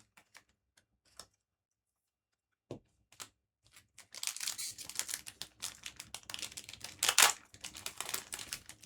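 A few faint clicks and a soft knock, then about five seconds of crinkling and tearing as a foil trading-card booster pack is ripped open, loudest about seven seconds in.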